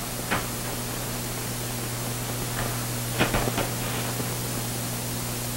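Steady hiss and low hum of an old 1940s film soundtrack, with a few faint ticks about a third of a second in and again a little after three seconds.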